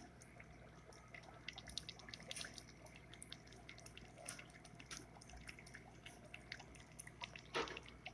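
Aquarium air stone bubbling in a shrimp jar: many small, irregular pops and drip-like clicks of bubbles breaking the water surface, over a faint low hum. A short, louder rush near the end.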